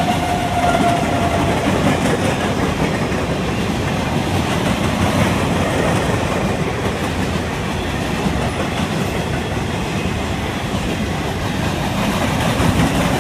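CN mixed freight train rolling past, its steel wheels rumbling and clattering over the rail joints as autorack and hopper cars go by, steady throughout. A thin wheel squeal fades out in the first second or two.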